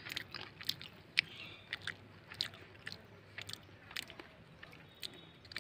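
A cooked quail egg being peeled and eaten: the shell crackling under the fingers, then chewing. It comes through as a run of small, irregular sharp clicks.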